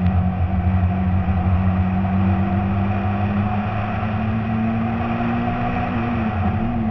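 Citroën C2 rally car's engine running under way, heard onboard, holding a fairly steady pitch with a slight change in pitch near the end.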